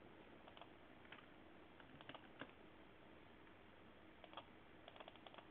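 Faint, scattered clicks of a computer mouse against near-silent room tone: a few single clicks, then a quick run of several near the end.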